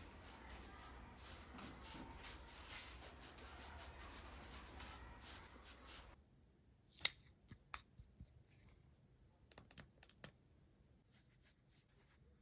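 Close-up rubbing and scraping on a melon's rind, a dense run of short strokes, which stops abruptly about six seconds in. A few sharp clicks and taps follow.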